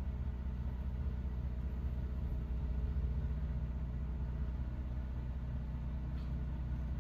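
A steady low mechanical hum, even in pitch and level throughout.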